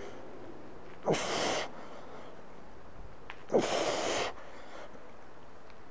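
A man's forceful exhalations under strain: two sharp breaths out about two and a half seconds apart, one with each rep of a heavy kettlebell goblet squat.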